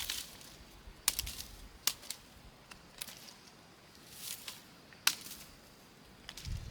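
About five sharp clicks or knocks, irregularly spaced, the loudest near the start, about a second in, about two seconds in and about five seconds in, with a faint hiss around four seconds in.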